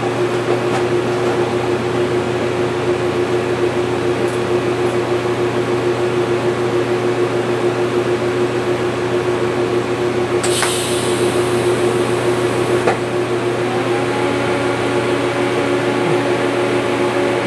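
TIG welding machine humming steadily with a steady tone, and a high hiss for about two and a half seconds past the middle as a short tack weld is struck.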